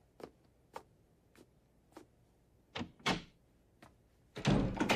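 Soft footsteps about every half second, then the click of a door handle around three seconds in and a heavy door thud near the end.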